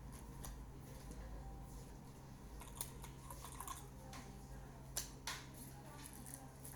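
Faint, scattered clicks and light scraping of small tools and plastic parts being handled while a smartphone is taken apart, over a steady low hum.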